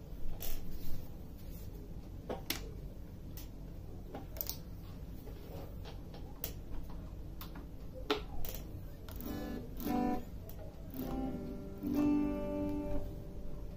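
Mexican-made Fender Mustang electric guitar through a small Roland Micro Cube amp. For most of the stretch there are only scattered clicks and taps as the amp knobs are set. From about nine seconds in, a few picked chords and notes ring out.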